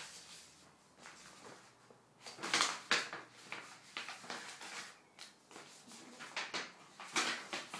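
A paper mailing envelope being handled, rustling and crinkling in several short bursts as stickers are taken out of it.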